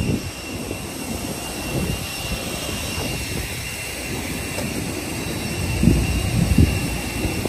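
Jet aircraft engine running steadily, a constant rushing noise with a thin high whine over it. Two short low rumbles come about six seconds in.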